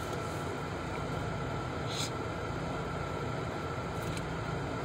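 Steady low hum and hiss of a car cabin, with a faint steady high tone running through it and a brief soft hiss about two seconds in.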